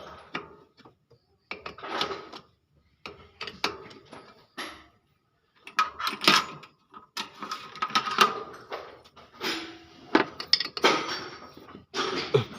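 Metal hand tools clinking and knocking in irregular short bursts with brief pauses, as wrenches work on the fittings of a brake master cylinder to remove it.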